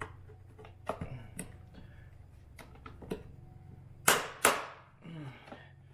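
Plastic-welded joints of a Jeep JL fender cracking as the upper and lower halves are pulled apart by hand. There are a few small sharp snaps, then two loud cracks about four seconds in, half a second apart.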